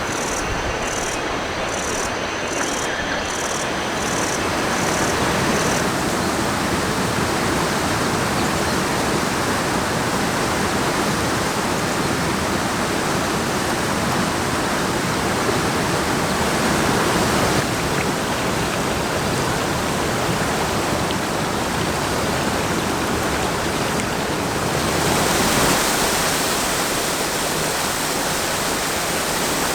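Steady rush of fast-flowing water in a mountain stream, its tone shifting abruptly a few times.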